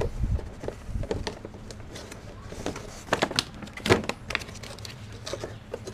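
Clear plastic dome lid of a seed-starting tray being handled and pressed onto the tray: a string of light, uneven plastic clicks and crackles, the loudest a little under four seconds in.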